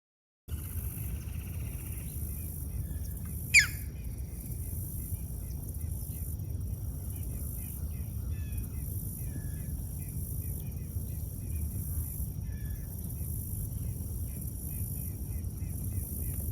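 Outdoor bird chorus: many small birds chirping in quick short notes. About three and a half seconds in comes one sharp call that sweeps downward in pitch, the loudest sound. Underneath runs a steady low rumble.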